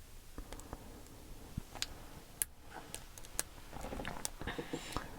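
Faint, irregular metal clicks and ticks of a lock pick and tension tool working the pins of a pin tumbler lock fitted with security pins, with a busier scratchy stretch about four seconds in.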